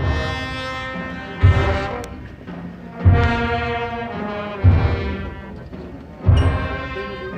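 Procession brass band playing a slow funeral march: sustained brass chords over a heavy drum stroke about every one and a half seconds.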